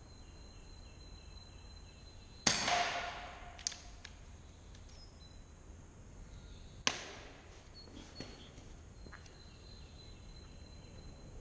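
Two air rifle shots about four seconds apart, each a single sharp crack, the first followed by a short ringing tail. A few faint clicks come between and after them.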